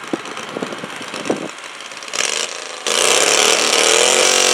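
Super stock garden tractor engine running low with a few knocks, then opening up suddenly to full throttle about three seconds in and holding a loud, steady high note whose pitch climbs slightly near the end.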